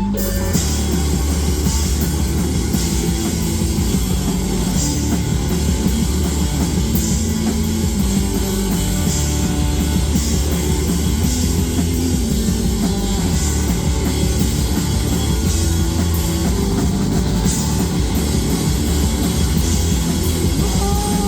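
Live rock band playing a loud instrumental stretch, drum kit and guitar, with a cymbal crash recurring about every two seconds.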